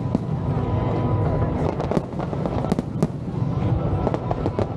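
Fireworks display: a dense, irregular run of bangs and crackles bursting overhead, with music playing underneath.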